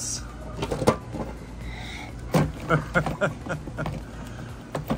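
Toy monster trucks clacking and knocking against a plastic bin and a plastic washing tub as they are picked up and handled. There is a sharp knock about a second in, a quick run of clicks a little past the middle, and one more near the end.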